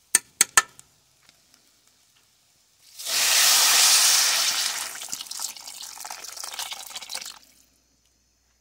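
Water poured into a pot of rice frying in hot oil, hissing and sizzling loudly as it hits the hot pan. The hiss starts suddenly about three seconds in and dies away over about four seconds. A few light knocks of pot or utensil come at the start.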